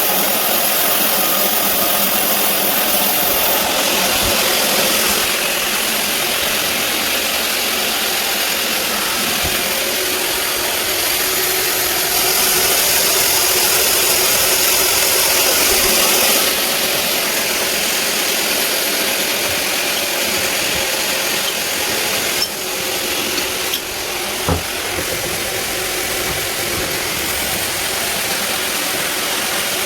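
Sawmill band saw cutting through a large teak log: a steady machine drone with the hiss of the blade in the wood, which swells twice. There are a couple of sharp knocks about two-thirds of the way through.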